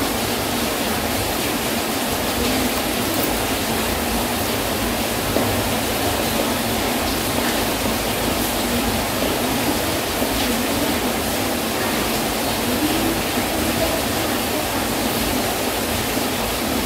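Heavy rain falling, a steady unbroken hiss.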